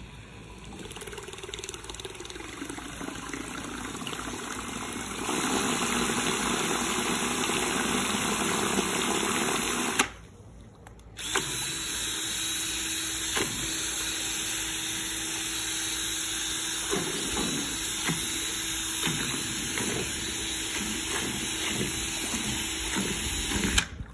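Ryobi cordless drill spinning a propeller on a shaft under water, the motor whining and the prop churning the water. It builds up over the first few seconds, stops for about a second roughly ten seconds in, then starts again and runs steadily, with scattered clicks in the second half.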